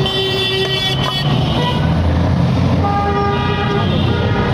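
Steady street traffic noise with a vehicle horn tooting twice: one long toot right at the start and another about three seconds in.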